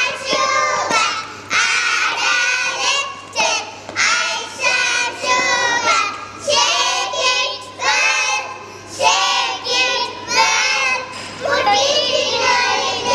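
A group of young children singing together in unison, in short phrases with brief breaks between them.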